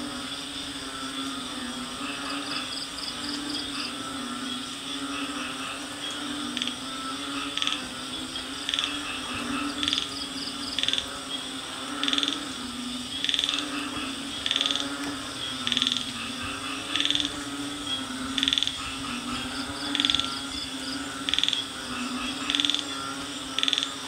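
Night jungle chorus of many frogs croaking steadily, with faint insect-like trills above. From about seven seconds in, a loud short call repeats roughly once every second and a quarter.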